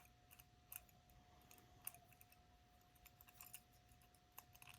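Faint, irregular metallic clicks from a pick working the levers inside a 4-lever lever lock, with a shaved-down key used to move the bolt.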